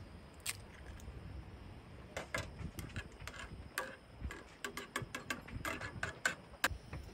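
A utensil tapping and scraping against a small non-stick camping pot as eggs are broken up and stirred in it: a single click about half a second in, then many quick, irregular clicks from about two seconds in.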